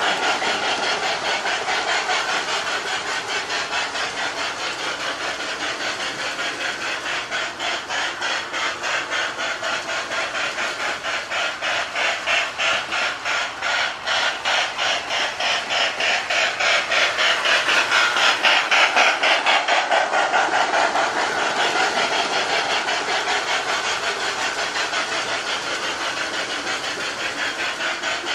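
Toy steam-locomotive chuffing from a Sound of Power unit in a Marx 1829 O-gauge engine's tender, played through a Lionel sound board and an aftermarket 8-ohm speaker behind holes drilled in the metal tender frame. The chuffs come as a rapid, even beat over a steady hiss while the train runs, and swell louder for a few seconds about two-thirds of the way through.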